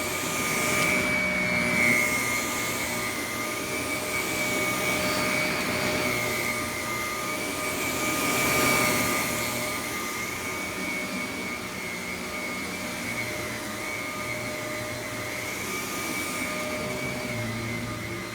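Shark Navigator Lift-Away upright vacuum cleaner running, with a steady high-pitched motor whine over the rush of suction. It swells louder twice, about two seconds and about nine seconds in.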